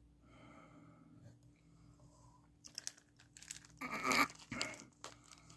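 Rustling and crinkling of fly-tying materials being handled close to the microphone. It starts about halfway in as a run of crackles and scrapes with sharp clicks, loudest a little past the middle.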